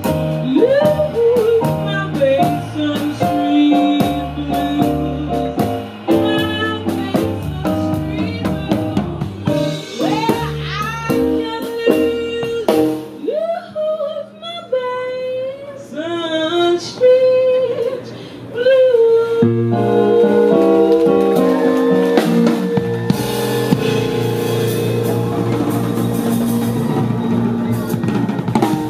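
Live band of drum kit, bass and keyboard backing a woman singing, with sung runs over the drums. The drumming stops about halfway, and the band closes on a long held chord.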